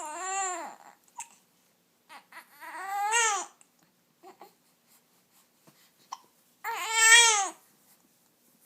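Baby crying in three drawn-out wails, with short hiccups in the gaps between them that keep breaking up the cry.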